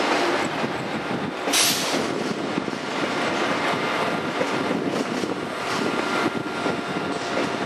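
SNCF TGV high-speed train rolling slowly into the station: a steady rumble of wheels on rail with faint regular clicks, and a short sharp hiss of air about one and a half seconds in.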